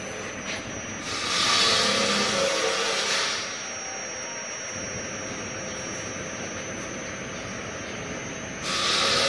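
Chapati-making machine's gas-fired baking oven running: a steady hiss and machine noise with a faint high whine, broken by louder bursts of hissing, one of about two seconds starting a second in and another near the end.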